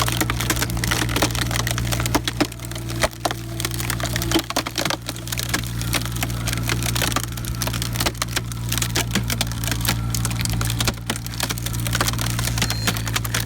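Mini excavator engine running steadily while a hydraulic cone wood splitter screws into a log, the wood cracking and splintering over and over as it is forced apart.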